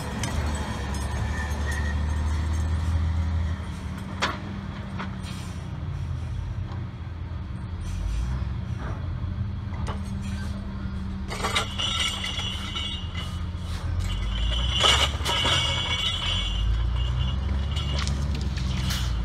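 Log Champ LC550 grapple yarder working: a steady low engine drone that eases off about three and a half seconds in and picks up again later, with sharp metallic knocks and clinks from the grapple and rigging, busiest in the second half as the grapple works over the logs.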